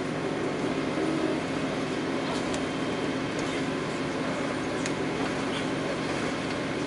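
Steady running noise inside a diesel railcar (KiHa 40/41 type) travelling on the Bantan Line: engine drone and wheels on the rails. There are a couple of faint clicks around the middle.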